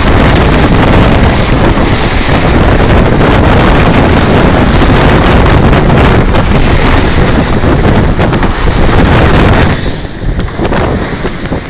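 Wind buffeting the microphone over the rushing, splashing bow wave of a heeled sailboat driving through choppy water. About ten seconds in it turns quieter and less hissy.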